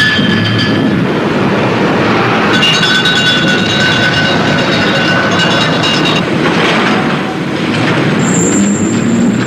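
Heavy metalworking factory machinery: a loud, dense clatter of metal on metal, with shrill metallic squealing from about two and a half seconds in to six seconds, and a thin high whine near the end.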